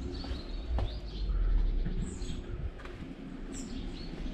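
Small birds chirping in short calls, over a low rumble that swells between about one and two seconds in, with a single knock just before it.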